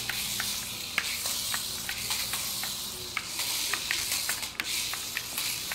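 Small battery-powered Adventure Force Stunt Runner RC stunt car racing across ceramic tile: its motors and wheels give a steady high hiss, with many small clicks and clatters as it spins and flips on the hard floor.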